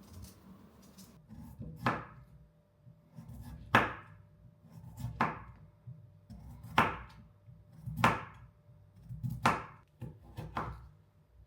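A series of seven sharp knocks, about one every second and a half.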